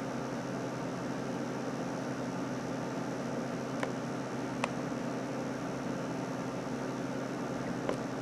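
Steady low electrical hum with a layer of hiss, and a few faint clicks in the middle and near the end.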